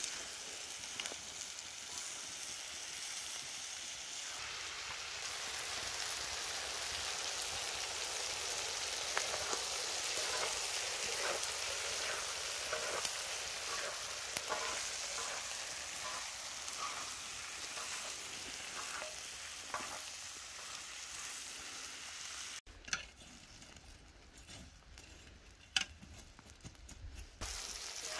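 Lamb liver, heart and lungs with potatoes and onions frying on a hot saj, a domed iron griddle over wood embers, with a steady sizzle and the clicks and scrapes of two wooden spatulas stirring. The sizzle falls much quieter for a few seconds near the end, then comes back.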